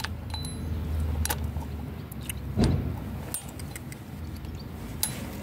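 Sharp metal clicks and ticks of a steel circlip being worked onto a cart's rear axle by hand, with a single dull knock about halfway through.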